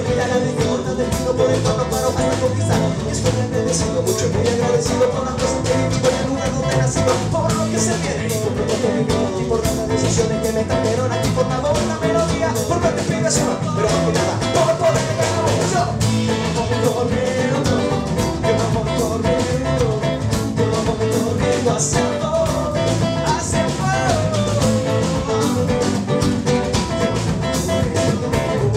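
Live rock band playing a song: a man singing over strummed acoustic guitar, electric bass and drum kit.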